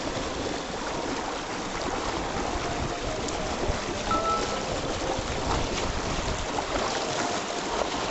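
Mountain stream rushing over rocks, a steady hiss of running water.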